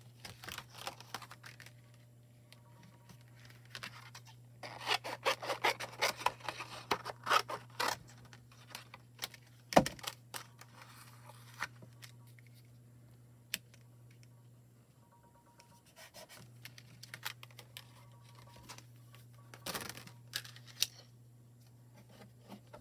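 Paper and card stock being handled and cut: bursts of rustling and scraping, the longest about five to eight seconds in, and a sharp click near ten seconds, over a steady low hum.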